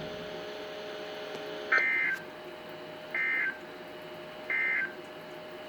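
Three short bursts of EAS SAME digital data tones, about 1.3 s apart, sent over NOAA Weather Radio. They are the end-of-message code, marking that the alert broadcast has ended.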